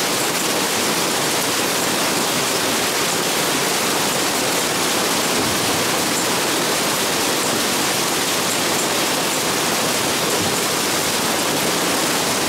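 Heavy rain mixed with hail pouring down and splashing into water pooled on a terrace: a loud, steady, dense hiss with faint ticks of impacts.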